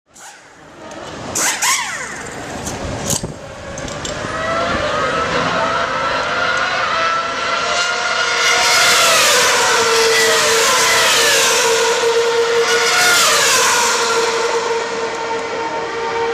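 Formula 1 cars' V8 engines running at high revs, with the pitch falling as cars go by about nine and thirteen seconds in, over a steady engine tone. A few sharp clicks come in the first three seconds.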